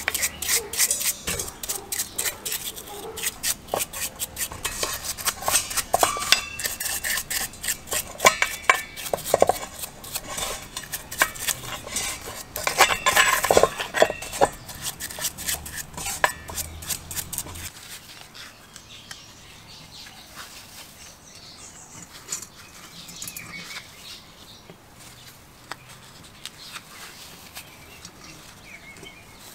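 A brush scrubbing a small steel gear and shaft in a stainless steel bowl of cleaning fluid: rapid scraping strokes with metal parts clinking against the bowl. About two-thirds of the way through the scrubbing stops and only faint handling sounds remain.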